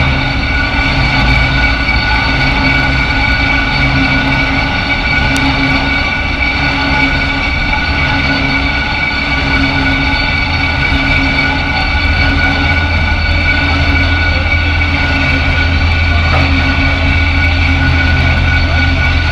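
Diesel engines of two tugboats running in a steady drone with a high whine over it, the low drone growing louder about two-thirds of the way through as the tugs come closer.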